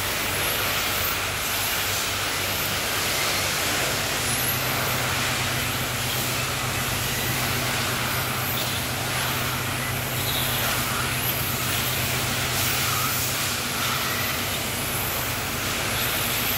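Electric radio-controlled touring cars racing, their high-pitched motor whines rising and falling as they pass, over a steady hiss of tyre and track noise.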